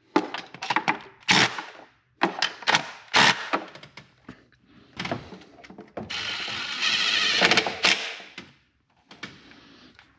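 Metal tools and parts clinking and knocking, then a cordless power tool runs steadily for about two seconds, starting about six seconds in.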